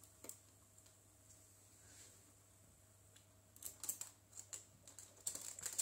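Faint quick clicking and scratching of a guinea pig's claws on plastic Lego bricks as it climbs over a wall, in two short flurries in the second half.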